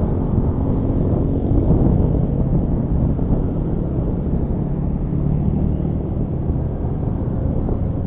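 Honda Scoopy scooter riding along, its single-cylinder engine running steadily under a heavy rush of wind on the microphone. The engine note strengthens briefly about five seconds in.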